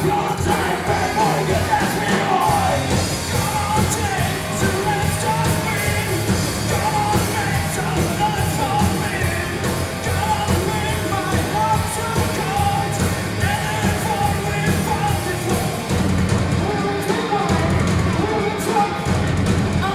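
Live rock band playing: electric guitar, bass guitar and drums, with a vocalist singing and shouting over them.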